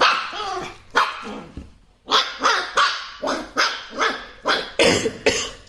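A dog barking over and over: two single barks, then a quick run of barks from about two seconds in.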